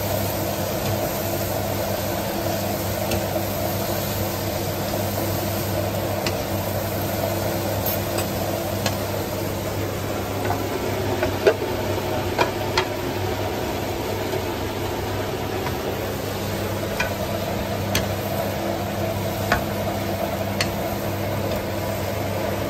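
Greens and shrimp sizzling in a nonstick wok as a wooden spatula stirs and turns them, with a few sharp clicks of the spatula against the pan, the loudest about halfway through. A steady low hum runs underneath.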